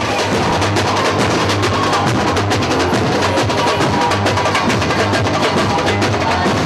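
Tecno samba: electronic music with live samba percussion playing a fast, dense beat.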